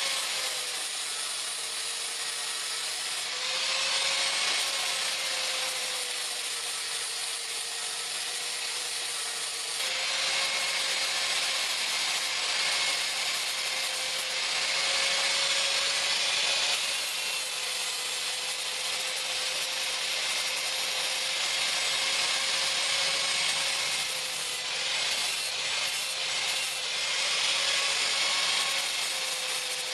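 An electric grinder running with a steady motor whine while it grinds steel. The hissing grinding noise swells and eases every few seconds as the work is pressed on and eased off.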